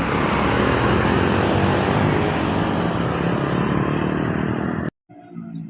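A bus driving past close by, its engine and tyres making a loud, steady road noise. The sound cuts off abruptly about five seconds in and is followed by a fainter, different sound.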